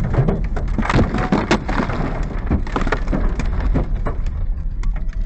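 Slush and bits of ice thrown up by a passing truck spattering against a car's windshield in a rapid, irregular run of sharp ticks and cracks over the low rumble of road noise. The hits thin out about four seconds in.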